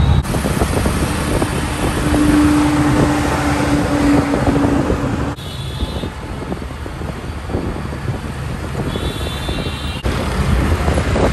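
Road traffic heard from a moving auto-rickshaw: the engine running, wind on the microphone and passing vehicles. A steady tone sounds from about a second in until about five seconds in, and the sound changes abruptly twice.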